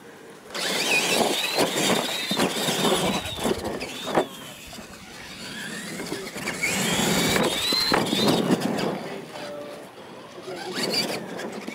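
Radio-controlled monster trucks launching about half a second in and racing on dirt. Their electric motors and gears whine, rising and falling as the throttle changes, with tyres scrabbling and sharp knocks as the trucks bounce across the track and over a wooden ramp. The noise drops off near the end as the run finishes.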